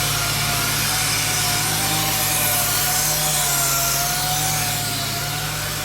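Angle grinder with a sanding disc running steadily against steel, sanding off the old paint film, its motor whine wavering slightly in pitch under load over a steady rasping hiss.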